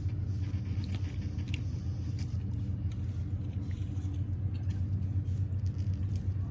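Steady low machine hum, even in level throughout, with a few faint clicks over it.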